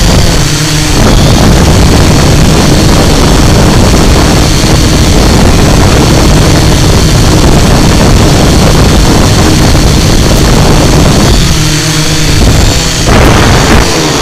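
A small drone's electric motors and propellers whirring steadily and loudly while it flies, with air rushing over the microphone.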